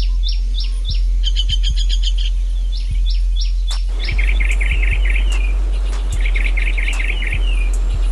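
Birds chirping in a series of short, falling whistled notes and quick chirps. About four seconds in, the rushing of a stream over rocks comes in abruptly, with trilling bird calls over it. A steady low hum runs underneath throughout.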